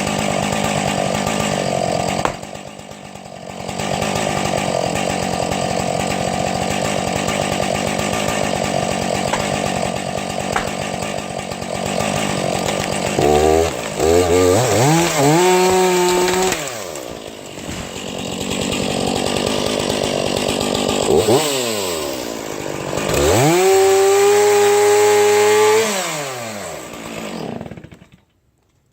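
Two-stroke chainsaw cutting through a tree trunk, with the throttle easing off briefly about three seconds in. Later the engine pitch rises and falls twice, and the saw dies away to silence near the end.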